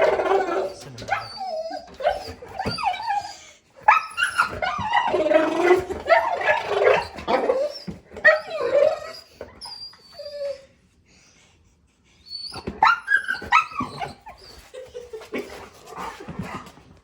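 Golden retriever's vocal "talking" to small birds outside a window, a sound he makes only for birds: long runs of pitched vocalizing that bend up and down. There is a short pause a little after two-thirds of the way through.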